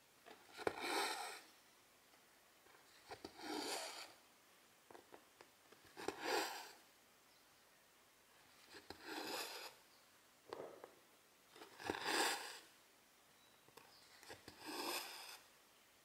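Silk thread being drawn through cross-stitch fabric: six short rasping swishes about three seconds apart, each led by a few faint clicks of the needle going through the cloth.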